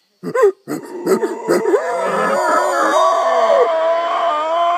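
Howler monkeys howling: a few short, rough, gliding calls start abruptly just after the beginning, then swell into a continuous, loud chorus of several overlapping voices.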